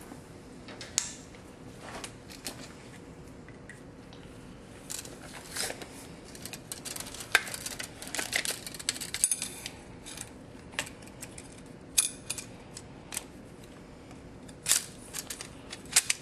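Scattered light clicks and metallic clatter of a tape measure, a marker and a length of EMT metal conduit being handled. The clatter is busiest in the middle, with a few sharper knocks near the end.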